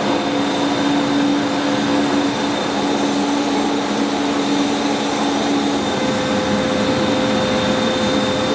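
A spray-tan machine's turbine blower running with a steady whirring drone. A hum within it drops out and a higher one takes over about six seconds in.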